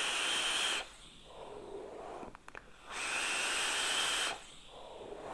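Two drags on a vape with a rebuildable dripping atomiser: a steady hiss of air drawn through the atomiser, ending about a second in and coming again from about three seconds in for over a second, with a softer exhale between.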